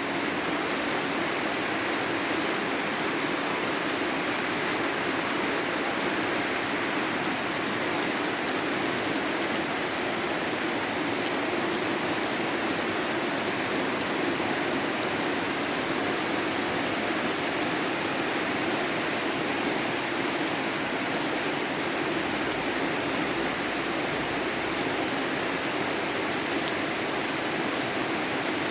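Steady heavy rain falling without a break, an even hiss of water.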